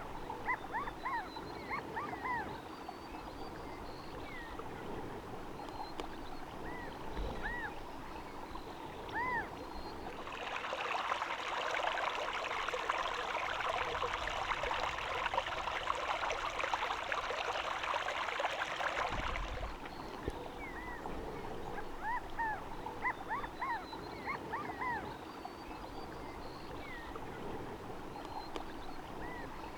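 Short, repeated chirping calls of small wild animals over a steady background hiss. A louder, even hiss comes in abruptly about a third of the way through and cuts off about ten seconds later, after which the chirping carries on.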